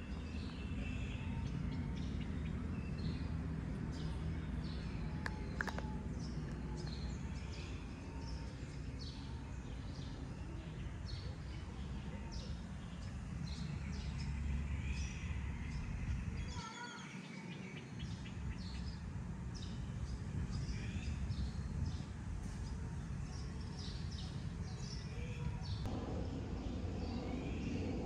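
Outdoor ambience: a steady low rumble with small birds chirping repeatedly throughout. The rumble drops out briefly a little past halfway.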